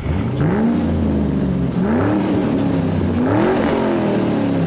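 A child's voice imitating a car engine, one long unbroken "vroom" that rises and falls in pitch several times, like revving.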